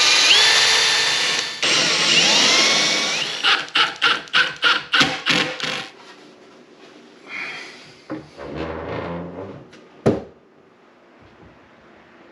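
Power drill running, its motor pitch sweeping up as it speeds up. It is then run in a rapid series of about ten short trigger bursts. Quieter handling noise follows, ending with a sharp click about ten seconds in.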